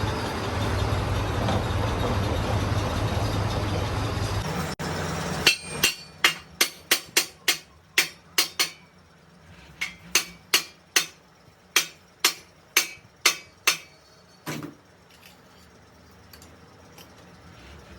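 A hammer striking a steel truck wheel rim: about two dozen sharp, ringing blows, roughly three a second, in two runs with a short pause between them and one last blow. Before the hammering a steady rushing machine noise runs for about five seconds and then cuts off suddenly.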